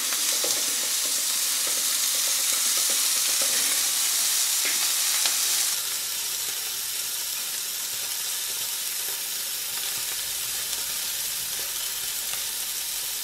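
Beef burger patty sizzling steadily as it fries in hot bacon fat in a pan, a little quieter from about six seconds in.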